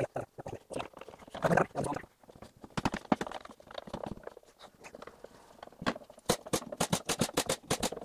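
Clatter of boards and tools being handled: scattered sharp knocks and clicks, then a fast run of sharp taps, about ten a second, starting about six seconds in.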